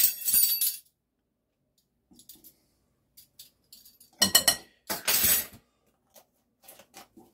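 Small metal measuring spoon clinking and rattling against a glass spice jar as allspice is measured out: light ticks and taps, with two louder clinking rattles about four and five seconds in.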